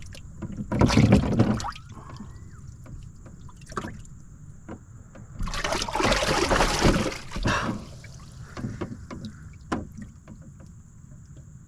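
A freshly caught bass thrashing and splashing while it is held for weighing, in two loud bursts about a second and about five and a half seconds in, with small knocks and drips between them. A faint steady high whine runs underneath.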